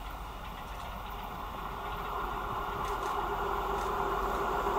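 Coupled 730ML diesel multiple units approaching, engine and running noise growing steadily louder.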